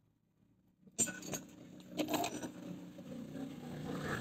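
Copper espresso-machine boiler parts and fittings clinking as they are handled: one sharp clink about a second in and another about two seconds in. A steady low background noise runs beneath them.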